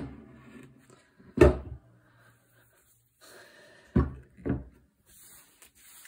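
The steel barrels and walnut-stocked action of a Beretta EELL over-and-under shotgun being handled and set down on a wooden table: four sharp knocks and clunks, the last two close together, with light rubbing and handling noise between them.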